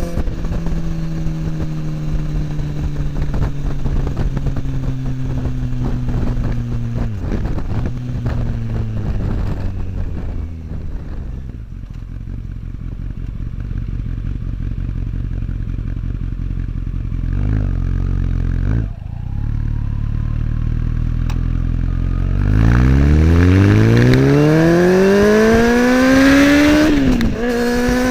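Kawasaki ZX-10R inline-four through an Akrapovic slip-on exhaust while riding. The engine note falls as the bike slows, with a gear change about seven seconds in, and runs low and steady through the middle. About two-thirds of the way through it accelerates hard with the pitch rising, shifts near the end, and climbs again.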